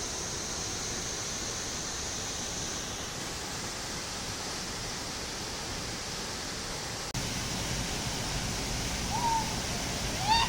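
Steady rushing water of a waterfall. About seven seconds in the sound cuts abruptly to a louder, deeper rush, and a voice begins near the end.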